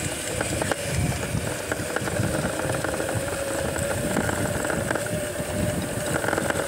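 Electric minibike motor running with a steady whine while riding over bumpy grass, over an uneven low rumble from the rough ground.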